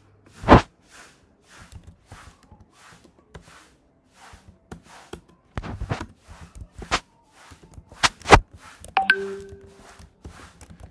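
Computer keyboard typing and mouse clicks: a run of quick key clicks, about two or three a second, with a few sharper, louder strokes about half a second in and around eight seconds in.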